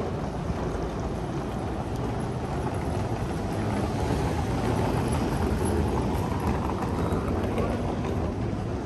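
City street noise with traffic, a steady low rumble that swells a little in the middle and eases off again.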